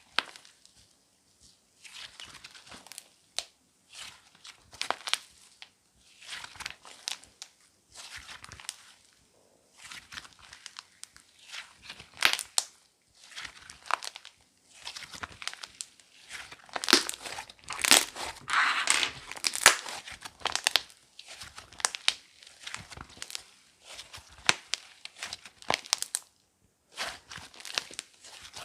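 Slime being squeezed and kneaded by hand, giving bursts of crackling and popping, one squeeze every second or two, busiest and loudest about two-thirds of the way through.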